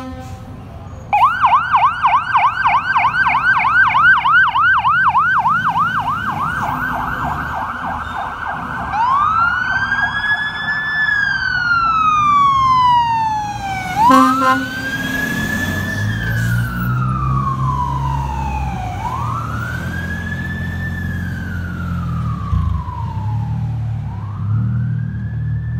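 Fire truck electronic siren on a fast yelp, about four sweeps a second for some eight seconds, then switching to a slow wail that rises and falls every five seconds or so. A short horn blast sounds about 14 seconds in, and a low diesel engine rumble runs under the wail as the apparatus pulls away.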